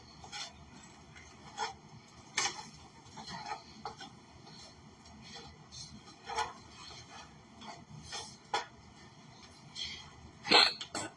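Irregular clinks and knocks of a utensil against a frying pan with chickpeas in it, about a dozen short hits spread over several seconds, two louder ones near the end.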